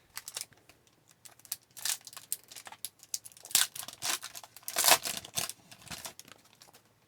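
Foil trading-card pack wrapper crinkling and being torn open in irregular crackly bursts, loudest about two, three and a half, and five seconds in.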